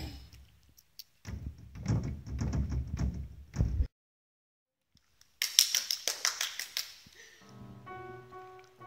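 Upright piano played by a toddler slapping the keys with both hands: clusters of notes sounding together, then after a break a run of quick sharp taps, and near the end a few notes ringing out clearly.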